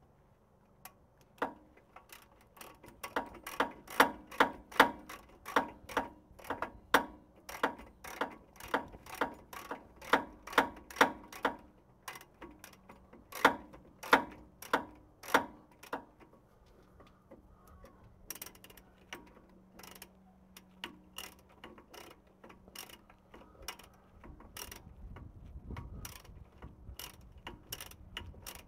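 Socket ratchet clicking in a steady run of strokes, about two clicks a second, as the differential centre's nuts are snugged down; after about sixteen seconds the clicks thin out and turn fainter.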